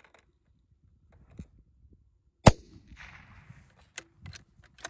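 A single shot from a bolt-action long-range rifle: one sharp crack about two and a half seconds in, followed by a rushing tail that dies away over about a second. Two short sharp clicks come near the end.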